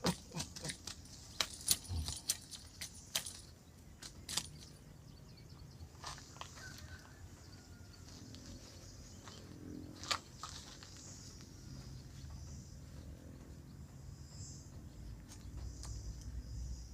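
Steady high-pitched chorus of insects, with a run of sharp clicks and knocks in the first four seconds and one more about ten seconds in.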